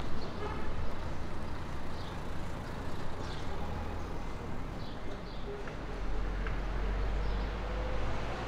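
City street traffic: a steady low rumble of cars and buses running past, growing a little heavier near the end, with scattered small ticks and clatters of street life.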